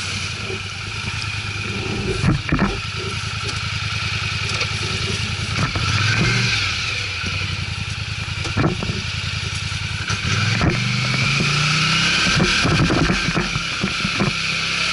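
ATV engine running and being revved, its pitch rising and falling, with scattered knocks and rattles.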